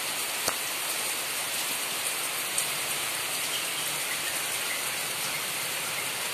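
Steady rain falling, an even hiss throughout, with a sharp click about half a second in and a smaller one about two and a half seconds in.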